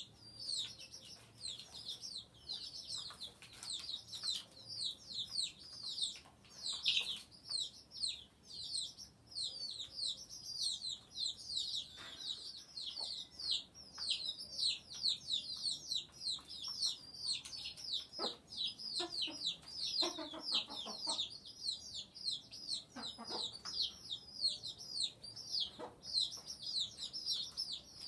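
Chickens: a constant run of rapid, high chirps, each falling in pitch, with a few lower clucking calls about two-thirds of the way through.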